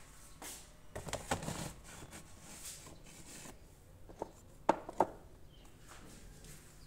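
Handling noise of a plastic compartment box being put away on a wooden cupboard shelf: a rustling scrape about a second in, then three sharp knocks between about four and five seconds in.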